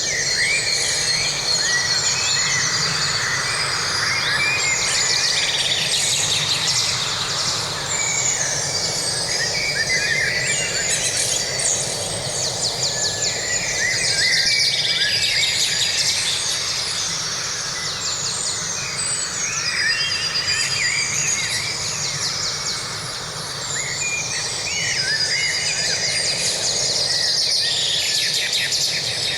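Forest birds singing: many overlapping chirps, trills and calls throughout, over a steady low background hiss.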